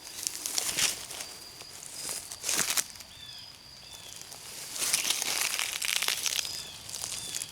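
Footsteps crunching and rustling through dry leaves and brush in several bursts, the longest near the end. A faint high chirp repeats in the background.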